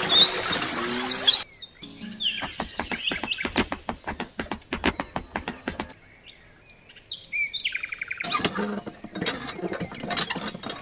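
Birds chirping in short rising and falling calls, with music under the first second or so and a quick run of sharp clicks from about two to six seconds in.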